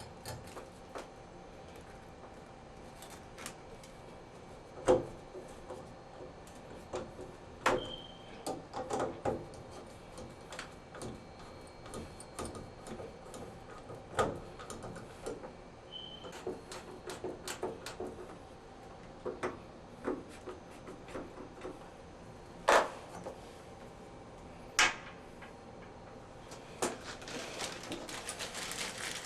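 Scattered clicks, taps and knocks of parts and tools being handled, with a few sharp louder knocks, while trim is fitted on a tub and shower valve. A steady hiss builds near the end.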